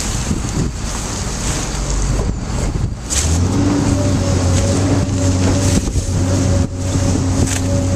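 Motor of a V500 mill-size baler starting about three seconds in and then running with a steady hum, over a rushing wind-like noise.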